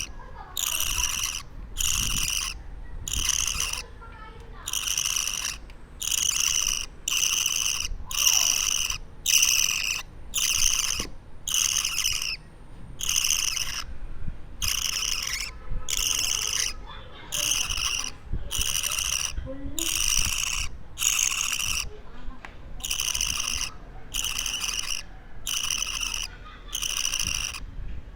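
A two-week-old budgerigar (parakeet) chick giving harsh, rasping calls over and over, about one a second, the rhythmic begging calls of an unweaned chick.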